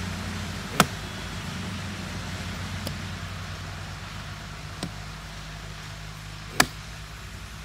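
A long-handled digging tool chopping into earth and tree roots around a trunk: two sharp strikes, about six seconds apart, with two fainter hits between them. A steady low hum runs underneath.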